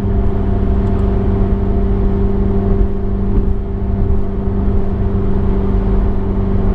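Road and engine noise inside a car cruising at highway speed: a steady low rumble with a constant hum that holds the same pitch throughout.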